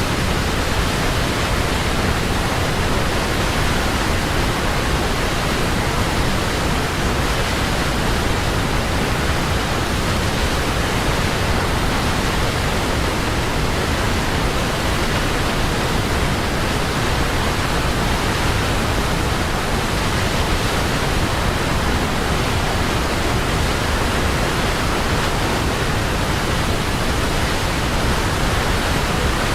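Waterfall: a steady, even rush of falling water with no changes or separate splashes.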